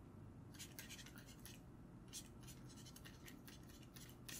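Faint scratching of a stylus writing on a tablet, in a series of short separate strokes.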